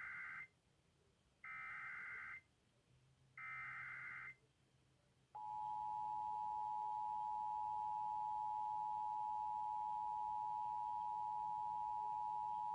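Emergency Alert System broadcast tones: the end of one SAME header data burst, then two more buzzy bursts about a second each, followed about five seconds in by the steady two-tone EAS attention signal, which holds on.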